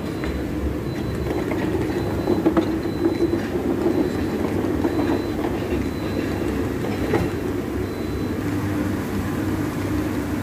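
Steady rumbling drone of a commercial kitchen's grill extraction hood, with a few short clinks of plates and utensils.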